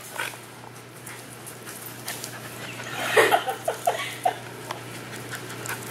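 Two puppies, a Great Dane and a small terrier, play-fighting: about three seconds in, one gives a quick run of about five short whining cries. A few light clicks, like claws on a concrete floor, come before and after.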